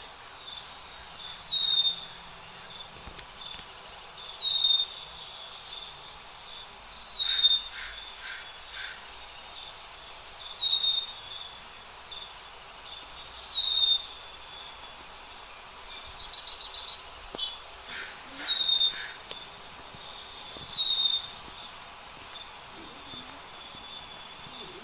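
A bird repeats a short, high, falling whistled note about every three seconds over a steady high insect chorus of crickets or cicadas. About 16 seconds in comes a brief fast trill, and there are a few softer lower chirps.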